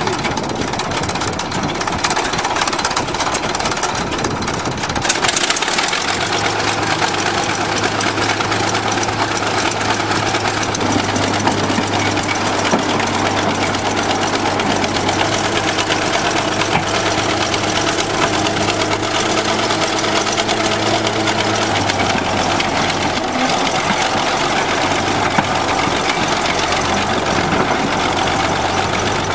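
Bulldozer engine running steadily, with a low steady hum joining about six seconds in.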